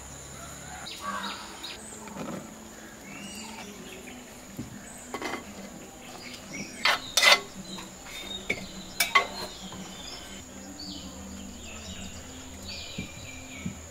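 Clay cookware and a serving spoon knocking and clinking while jackfruit pieces are moved from a clay bowl into a cloth-lined clay pot, with a few sharp knocks near the middle. A steady high insect drone runs underneath.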